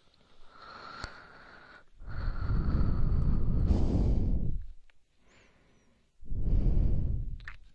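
Breathing close into the microphone, by the ear: a quieter breath, then two long breaths blown onto the mic with a heavy low rush, the first about two and a half seconds long and the second about a second.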